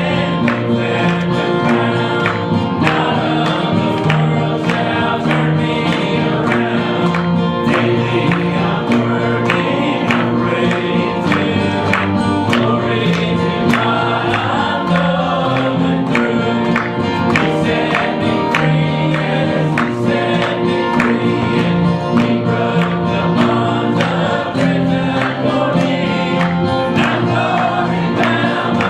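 Congregation singing a gospel hymn together, with instruments keeping a steady beat.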